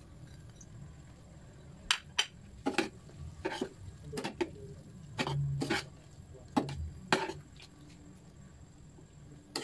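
Metal ladle clinking and scraping against a stainless-steel pot while stirring soup, several sharp clinks and short scrapes, with one longer scrape about five seconds in.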